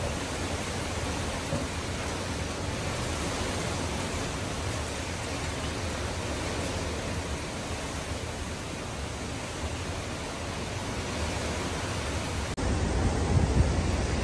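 Heavy storm rain and wind making a steady, even rush of noise. Near the end it switches abruptly to louder, gusty wind buffeting the microphone.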